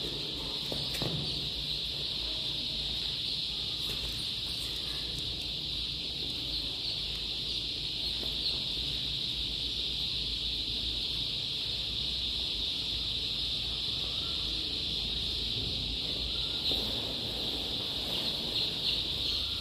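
A large brood of about a hundred young chicks peeping all at once, their cheeps blending into one steady high-pitched chorus.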